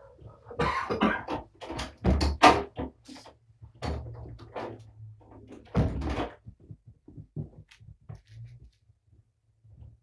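A person's footsteps moving away, mixed with knocks and bumps like a door or cupboard, loudest about two and a half and again about six seconds in, then fading to a few faint taps.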